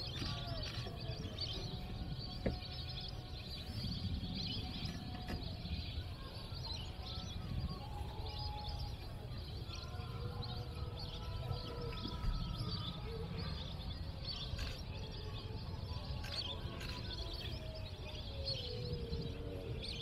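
A chorus of many birds chirping and calling at once, with a low steady rumble underneath and a single sharp click about two and a half seconds in.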